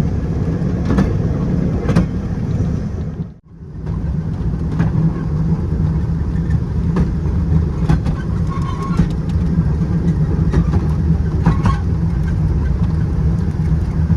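A train ride under way: a steady low rumble of the cars rolling on the track, with scattered clicks and clanks from the wheels and couplers. The sound cuts out briefly about three and a half seconds in.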